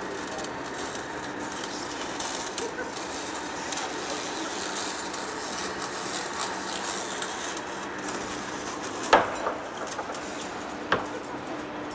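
Machine-shop noise: a steady hum with faint low tones throughout, and near the end two sharp metallic clanks about two seconds apart, the first the louder.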